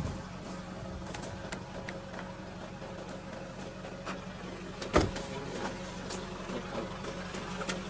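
Vehicle engine idling with a steady low hum, with scattered light clicks and one sharp knock about five seconds in.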